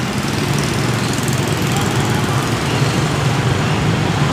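Steady low engine drone of road traffic.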